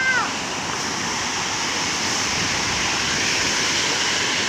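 Waterfall: a steady, strong rush of falling water.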